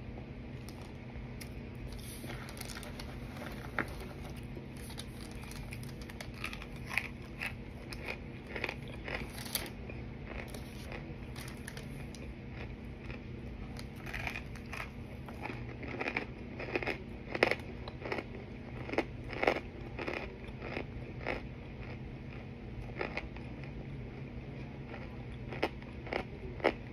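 Pressed cornstarch being bitten and chewed: irregular crisp crunches and clicks, thickest a little past halfway through and again briefly near the end, over a steady low hum.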